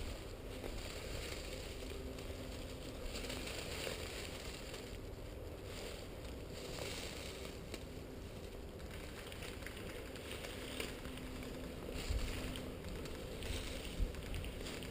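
Soft rustling and crunching recurring about once a second, like slow footsteps over the ground, over a steady low hiss.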